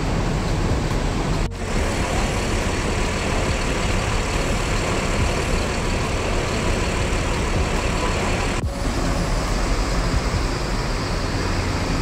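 Large diesel coach engine running at idle, a steady low rumble with a dense noise above it, broken twice by a very short drop-out.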